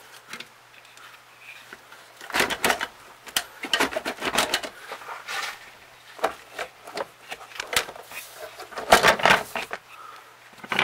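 Irregular knocks, clicks and scrapes of metal parts as a Honda CR-V brake booster is pushed and worked back into place, coming in several bursts, the loudest about nine seconds in.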